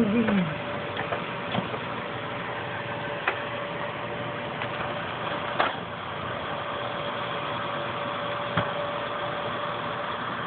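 Brown paper grocery bag crinkling and rustling in short, scattered bursts as kittens paw at it and climb into it, over a steady background hiss with a faint constant hum. A short falling whine sounds right at the start.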